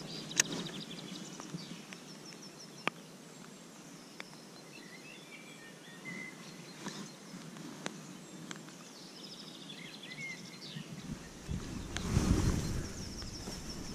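Birds chirping and trilling in the background, with a few sharp single clicks scattered through. About twelve seconds in there is a short low rumble of handling noise as the spinning rod is swung into a cast.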